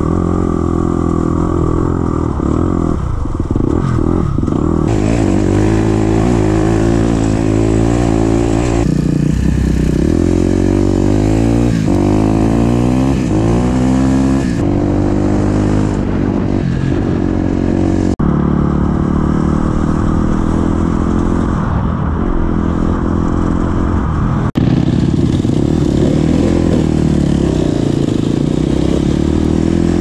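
Dirt bike engine running under way on a dirt track, its revs rising and falling repeatedly as the rider opens and closes the throttle and shifts. A steady hiss sits over it.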